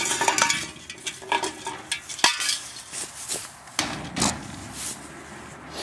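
Irregular light clinks, rattles and sharp clicks, with a louder knock about two seconds in and a cluster of knocks around four seconds: handling noise just after an airsoft rifle shot.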